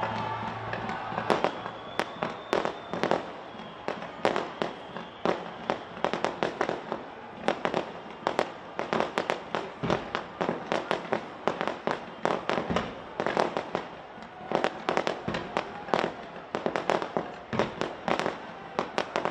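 Fireworks display going off: a rapid, irregular string of sharp bangs and crackles, thinning out for a few seconds midway before picking up again.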